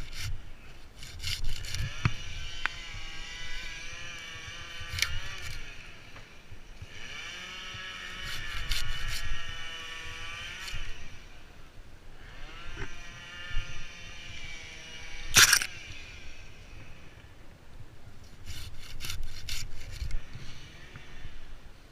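Chainsaw cutting wood in three bursts of a few seconds each, its pitch wavering under load. A sharp knock comes about two thirds of the way through, with scattered clicks.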